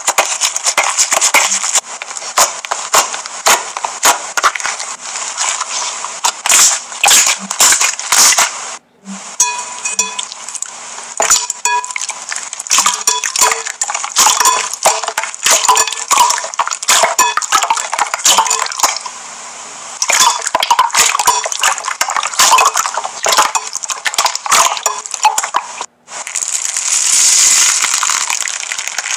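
Hands squeezing, folding and pressing slime, with rapid wet clicks and pops as air is squeezed out of it. Near the end a hand pushes into slime covered in foam beads, giving a steadier crackling hiss.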